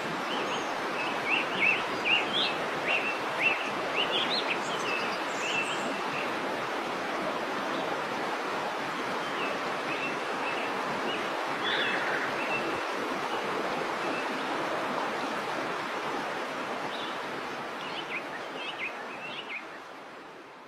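Steady rush of a waterfall, with birds chirping over it, most in the first few seconds and again near the end. The sound fades out at the very end.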